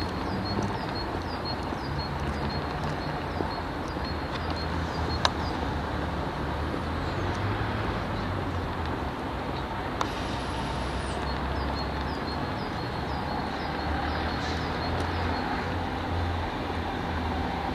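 Siemens Desiro electric multiple unit (SŽ series 312) pulling slowly into the station with a steady low rumble. A sharp click comes about five seconds in, and another about ten seconds in with a brief high squeal that falls in pitch.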